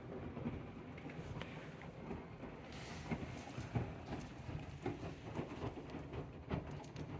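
AEG front-loading washing machine on a 95 °C cotton boil wash, its drum turning a load of cleaning rags: a low steady rumble with irregular soft knocks and sloshing as the wet load tumbles.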